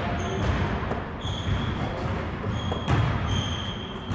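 Basketball bouncing on a hardwood gym floor and striking the rim and backboard during rapid repeated layups, with a few short, high squeaks from sports-wheelchair tyres on the court. Several thuds ring in the large hall.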